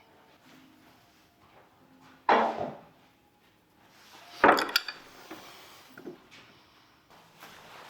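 Two short clunks of wood pieces being handled on a workbench, about two seconds apart, the second sharper.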